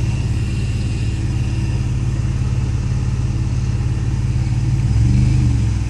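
Car engine idling as the car rolls slowly back in reverse, heard from inside the cabin as a steady low hum. About five seconds in it briefly grows louder.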